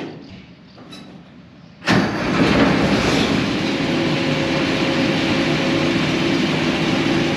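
A John Deere combine's diesel engine starting about two seconds in and then running steadily, a good clean start. A few light clicks come before it.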